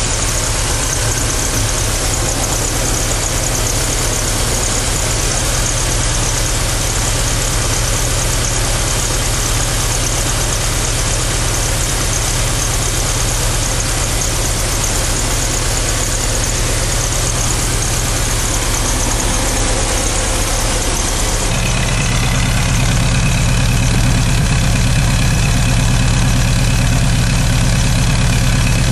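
Stock 2.1-litre water-cooled flat-four (wasserboxer) engine of a 1991 VW Vanagon idling steadily. About two-thirds of the way through, the sound turns deeper and a little louder as the exhaust note from the tailpipe takes over.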